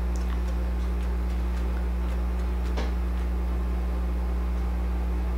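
A steady low electrical hum at a constant level, with one faint click a little past halfway.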